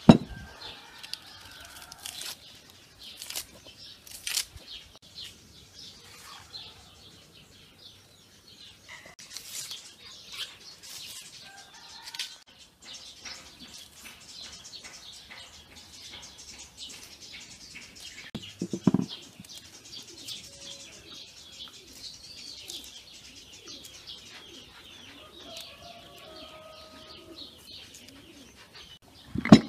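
Dry onion skins crackling and rustling as onions are peeled by hand with a small knife, with scattered clicks and one louder knock about two-thirds of the way through. Birds call in the background.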